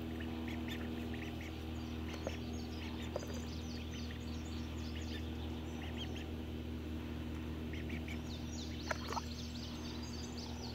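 Young Magpie ducklings peeping: many short, high-pitched calls, coming thick and fast all through.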